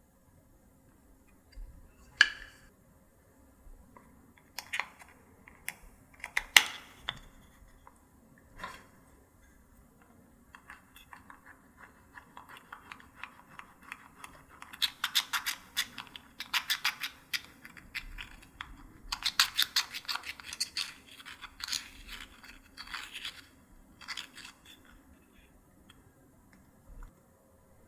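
Slime being worked by hand: sticky crackling and clicking as it is pressed and stretched, with a few sharp snaps in the first seven seconds and dense runs of small pops through the middle and later part.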